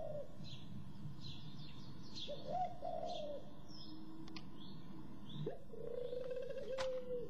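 Recorded spotted dove calls played back from a computer: three soft cooing phrases, with smaller birds chirping in the background of the recording.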